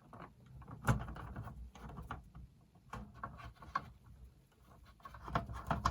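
Screws being driven back into a JVC RC-660 radio cassette with a screwdriver, along with handling of the cables and chassis: irregular light clicks and taps, with a sharper knock about a second in.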